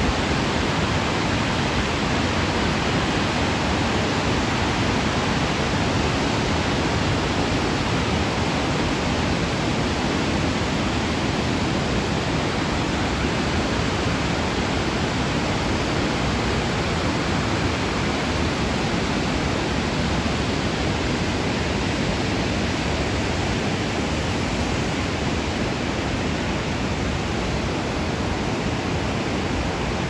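Steady rush of a waterfall and the white-water river below it.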